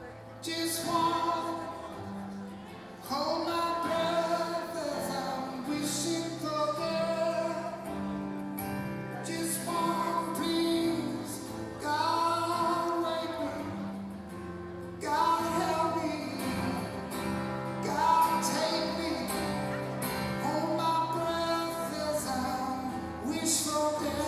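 Live solo acoustic performance: a man singing long, gliding phrases over his own acoustic guitar.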